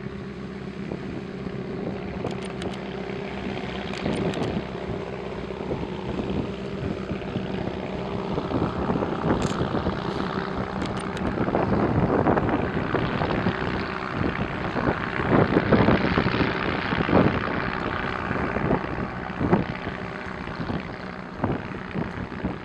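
A seaplane's propeller engine drones, swelling in the middle and easing off near the end, over a steady lower engine hum. Wind buffets the microphone.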